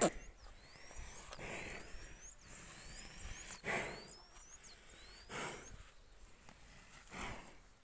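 Water buffalo breathing heavily, a rushing exhale about every two seconds. A bird repeats short rising whistles over it, and there is a sharp click right at the start.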